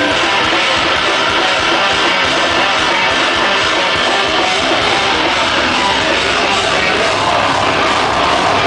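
Live rock band playing loud, with electric guitar and drums, heard as one dense wall of sound that never lets up.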